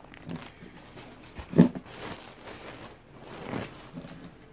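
Plastic produce packaging being handled: a bagged head of lettuce moved aside and a plastic clamshell container picked up. A short, loud knock comes about a second and a half in.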